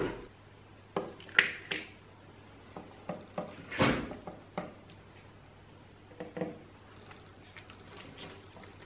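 Light knocks, taps and scrapes of objects being handled, scattered through, the loudest about four seconds in, over a faint steady low hum.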